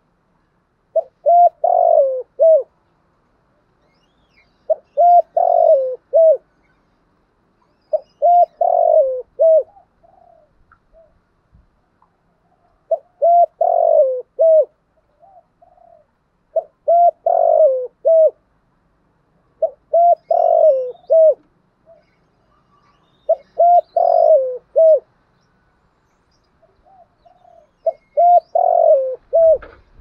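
Spotted dove cooing: eight repeated multi-note coo phrases, each about a second and a half long, roughly every three to four seconds, with a few softer notes between some of them.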